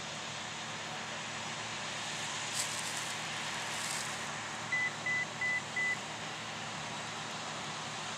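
Farm harvest machinery running steadily, with a quick series of four short electronic beeps, about three a second, a little after the middle.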